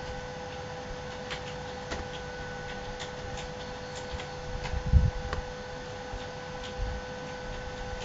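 Faint irregular clicks and taps over a steady hum, with a low thump about five seconds in.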